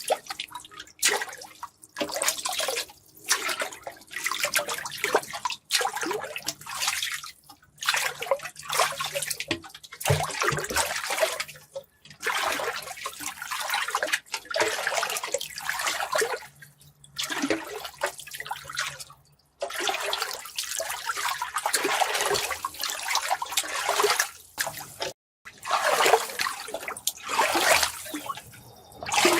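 Water rushing and splashing in irregular surges, each lasting a second or two with brief dips between them.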